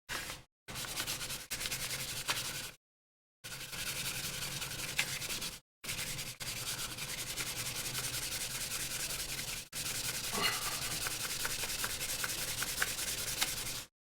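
Sandpaper rubbing on the plastic AirPods Pro case in continuous strokes, a dry scratchy sanding noise that cuts out abruptly a few times.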